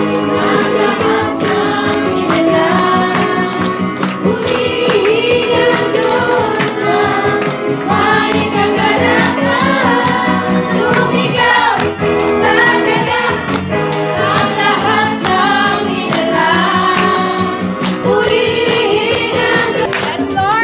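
A group singing a Tagalog praise and worship song together over a karaoke backing track, with hand-clapping along to the beat.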